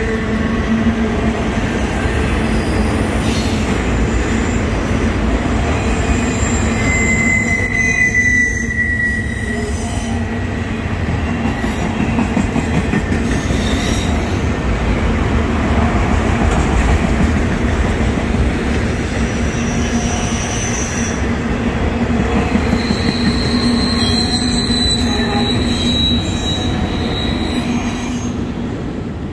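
Autorack freight cars rolling past on steel rails: a continuous rumble and rattle of wheels and car bodies, with thin, high-pitched wheel squeals now and then. One squeal comes about 8 seconds in and a longer one runs from about 23 to 27 seconds in. The rumble eases slightly near the end.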